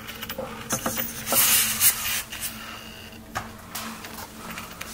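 Rustling and scraping handling noises in several short bursts, the loudest about a second and a half in, with a few clicks, over a faint steady hum.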